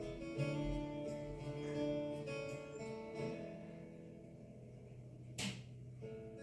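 Background acoustic guitar music, plucked notes that thin out about four seconds in, with a brief swish about five and a half seconds in.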